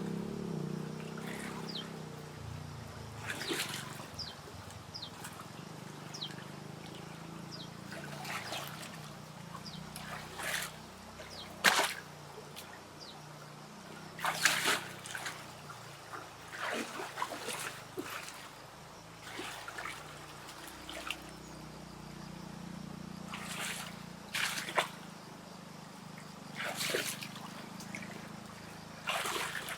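Water splashing and trickling in short, irregular bursts, one louder splash about twelve seconds in, over a steady low hum.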